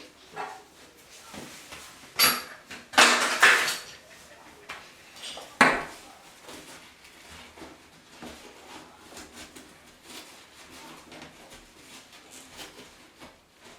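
Hard metal objects clinking and clattering: a sharp clink about two seconds in, a longer clatter a second later, and one more strike near six seconds, then only faint handling noise.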